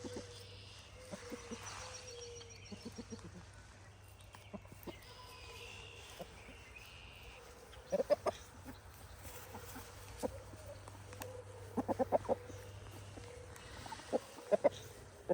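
Chickens clucking: short runs of quick clucks about eight seconds in, again around twelve seconds, and near the end, with softer scattered clucks between. Faint high chirps early on.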